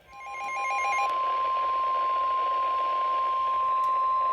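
NOAA Weather Radio 1050 Hz warning alarm tone: one steady, unbroken high beep over a hiss of radio static, the signal that a new warning follows. Chirping, stepping data tones sound under it for about the first second.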